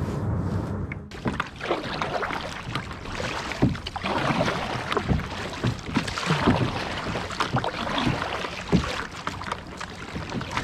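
Sea water slapping and splashing against a kayak hull while it drifts, with irregular knocks and gusts of wind on the microphone. A steady low hum in the first second cuts off abruptly.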